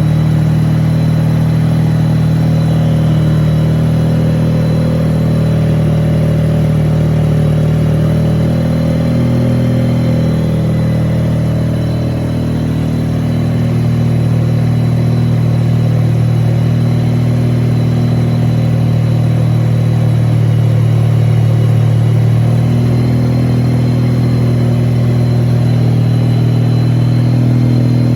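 The Wankelghini's Wankel rotary engine running steadily, its pitch shifting slightly up and down, with a brief drop in loudness about twelve seconds in.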